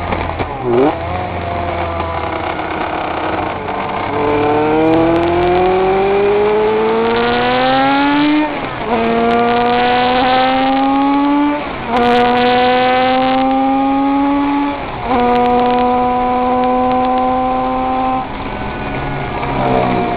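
König 500cc two-stroke flat-four racing motorcycle engine, heard from on board, running at lower revs for the first few seconds and then accelerating hard. Its pitch climbs and drops back at three upshifts, holds steady at high revs, and falls near the end as it slows.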